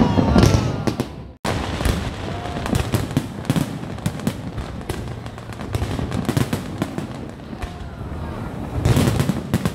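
Fireworks display: aerial shells bursting and crackling in quick succession, with a brief dropout about a second and a half in and a cluster of louder bangs near the end.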